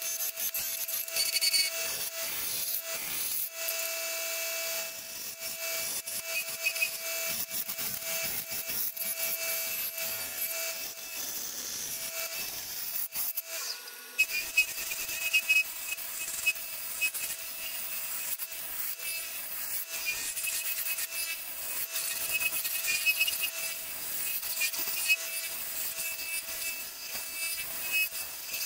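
Turning tool cutting a spinning wood blank on a lathe: a steady scraping hiss from the tool edge, with the lathe's faint steady hum beneath and a few sharper catches in the second half.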